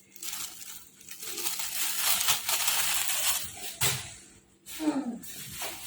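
Kitchen handling noise as boiled chicken is pulled apart and the bones set aside: a crackling, rustling stretch of about two seconds, then a few sharp knocks of the pieces and utensils on the dish.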